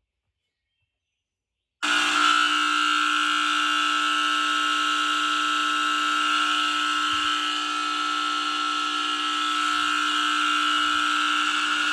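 ESL smoke alarm's horn sounding a loud, steady, unbroken alarm tone, starting suddenly about two seconds in.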